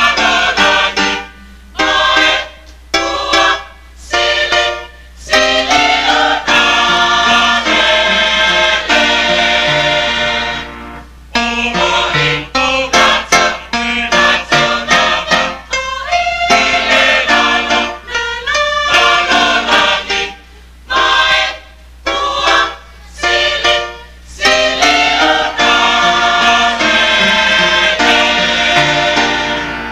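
Mixed Samoan choir of men's and women's voices singing in harmony, in short phrases separated by brief pauses, with a longer break about eleven seconds in.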